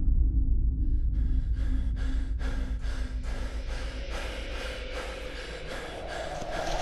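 Horror film sound design: a deep rumbling drone with rapid, rasping breath-like pulses about three a second laid over it, swelling near the end.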